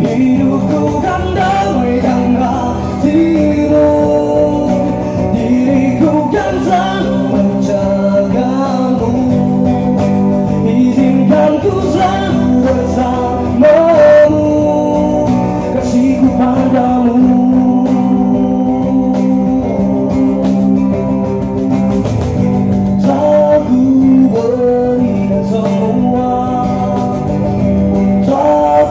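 A man singing while strumming an acoustic guitar, both through a microphone.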